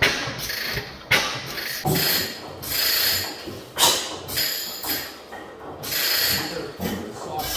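A 15hp Fairbanks Morse Type N stationary engine turning over on its big spinning flywheels. Its crank and valve gear clatter, with a repeated surge of sound about once a second.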